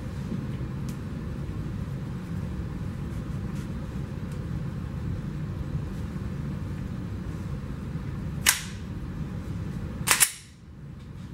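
9mm Glock 43 subcompact pistol firing: one sharp shot about eight and a half seconds in, then two quick shots about a second and a half later, over a steady low hum.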